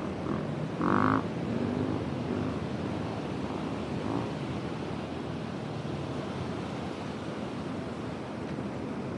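Ocean surf washing up over a flat sand beach, a steady rushing noise. About a second in, a brief louder pitched sound rises above it, with a fainter one near four seconds.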